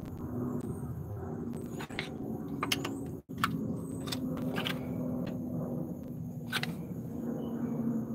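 Metal screwdriver prying against a rusty front disc-brake caliper to work the stuck caliper loose: a few sharp metal clicks and scrapes now and then, over a steady low hum.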